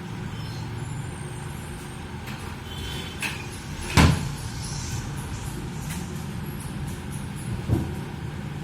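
Steady low rumble of background noise, with a sharp, loud knock about four seconds in and a softer knock near the end.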